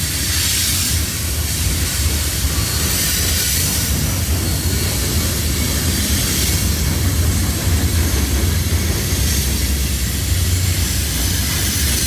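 CSX freight train's loaded gondola cars rolling steadily along directly below, a continuous deep rumble of wheels on rail with a hiss over it.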